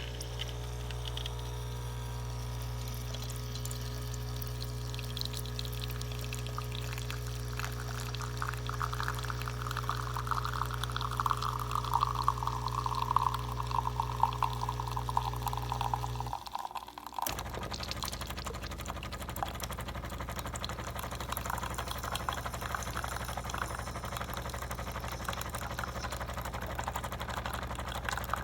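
Espresso machine pump humming steadily while liquid pours, with a faint falling tone over the pour. About two-thirds of the way through the hum cuts out and a rougher, noisier flow continues.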